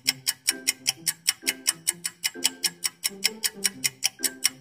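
Background music with a ticking, clock-like beat of about five ticks a second over a simple low melody.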